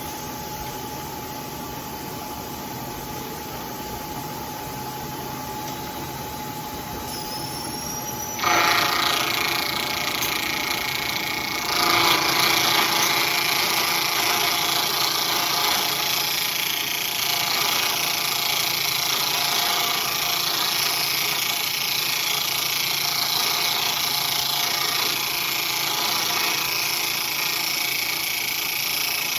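Bridgeport milling machine running, then about eight seconds in the milling cutter bites into the workpiece and a loud, steady cutting noise starts, getting louder again around twelve seconds in as the cutter feeds across the slot.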